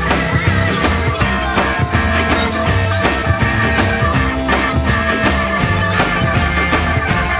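Instrumental break of a rock song with no singing: a steady drum beat under held melody notes.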